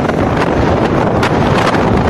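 Strong wind buffeting the microphone at the seashore, a loud steady roar with a few sharp gusty crackles, over the wash of sea waves.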